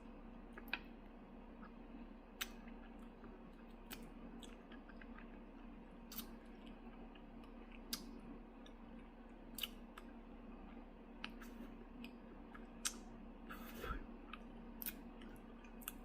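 Quiet eating sounds from chewing chicken feet: irregular sharp clicks and smacks of the mouth, roughly one every second or so.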